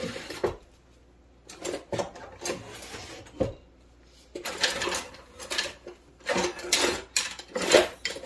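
Kitchen utensils clattering and knocking as someone rummages through them, in irregular bursts that grow busier and louder from about halfway.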